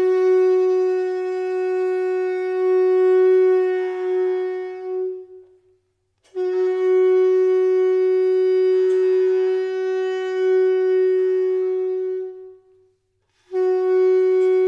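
Kombu, the curved brass horn of Kerala temple ensembles, blown in long held notes on one steady pitch: a note of about five seconds, a second of about six, and a third starting near the end, with short silent breaths between.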